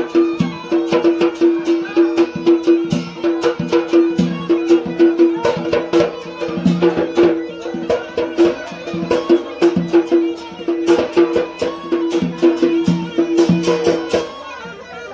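Yemeni jarawesh dance music: a mizmar reed pipe playing a repeating melody over fast, dense strokes on a hand-beaten double-headed drum. The music breaks off near the end.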